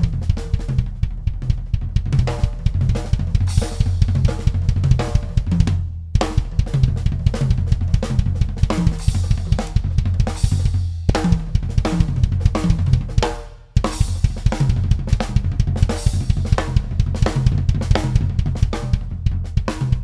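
Drum kit tuned for a Latin sound playing a busy groove with snare, bass drum, hi-hat and cymbals, over a steady low bass underneath. The playing breaks off briefly about six seconds in and again near fourteen seconds.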